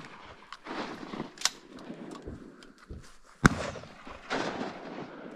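Shotgun shots: one loud shot about three and a half seconds in and a fainter, sharper crack about a second and a half in, each followed by a trailing tail.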